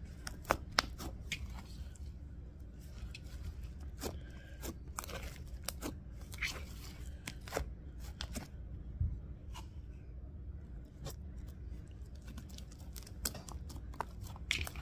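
Sticky, lightly activated slime being kneaded and pressed by hand, making irregular small clicks and pops as it sticks to and pulls off the fingers and table.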